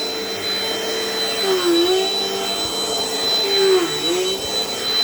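Dirt Devil Dynamite Plus vacuum cleaner running with a steady motor hum and high whine, its pitch dipping briefly twice.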